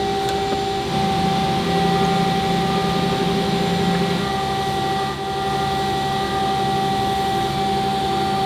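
Steady mechanical drone of running machine-shop machinery, holding several constant tones with a low hum underneath.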